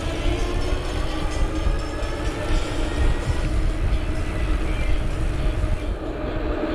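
Wind rushing over the microphone and the rolling noise of an ebike going downhill on asphalt, with a faint whine that slides slowly in pitch.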